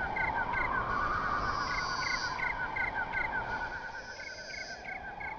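Outdoor nature ambience of many small animals chirping rapidly and repeatedly, with a high buzzing that comes and goes every couple of seconds.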